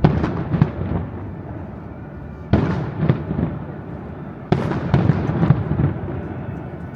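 Fireworks going off: three volleys of booming bursts with crackling after each, at the start, about two and a half seconds in, and about four and a half seconds in.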